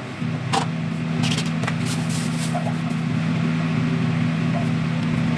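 A steady low machine hum, with a few sharp clicks and a short hiss around two seconds in.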